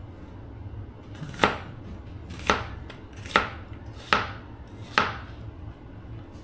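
Kitchen knife cutting an onion on a cutting board: five cuts about a second apart, each a sharp knock of the blade on the board.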